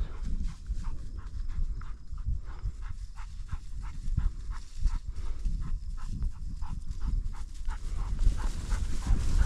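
A dog panting quickly and rhythmically, about three breaths a second, over a steady low rumble of wind on the microphone.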